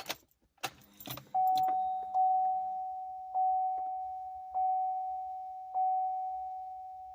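A few clicks, then a 2009 Chevy Impala's warning chime: one bell-like tone struck five times, roughly a second apart, each strike ringing and fading away.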